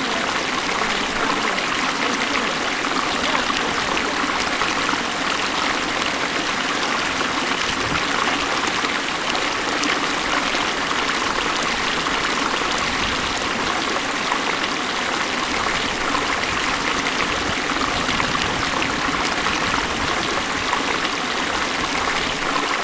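The Beas River's mountain water rushing steadily.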